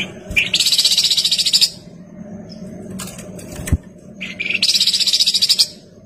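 Olive-winged bulbul (kapas tembak) singing two loud phrases about four seconds apart. Each is a short opening note followed by a rapid high trill lasting over a second.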